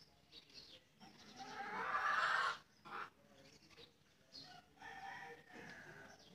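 Desi (native village-breed) rooster crowing once, a long call that swells and cuts off abruptly about two and a half seconds in, followed by fainter bird calls.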